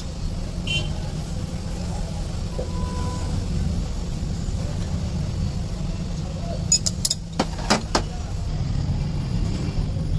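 Steady low background rumble, with a handful of sharp metallic clicks about seven seconds in as a gearbox shift fork and its selector rod are handled.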